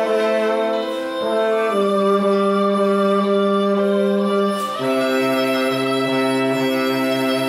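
Bass saxophone playing a slow hymn melody in long held notes, with a short note about a second in, a new held note near two seconds, and a step down to a lower held note about five seconds in.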